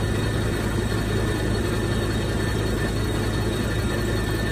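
CNC horizontal boring mill running, its spindle machining a large cast workpiece: a steady mechanical noise with a constant low hum and a faint high whine.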